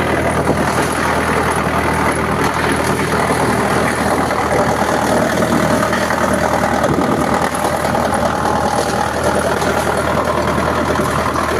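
Small wood cutting machine running steadily: a continuous low mechanical hum with a dense noise over it.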